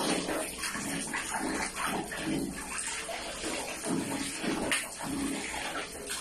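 Water running and splashing in uneven bursts.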